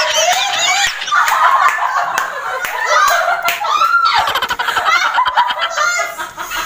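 Several women shrieking and laughing loudly in high-pitched squeals, with a few sharp smacks among the voices.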